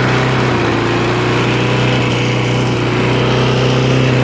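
Briggs and Stratton lawn mower engine running steadily at a constant speed, its choke lever now pulled back properly by the adjusted spring.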